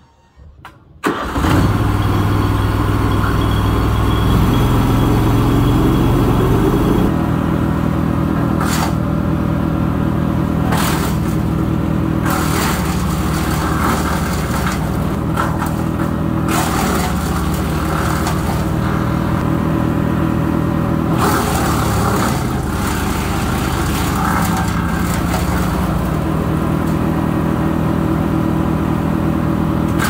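Wallenstein 6-inch wood chipper starting up about a second in and running up to speed, its pitch rising for several seconds. It then chips branches, giving a loud steady engine note with repeated sharp cracks and snaps as the branches are fed through.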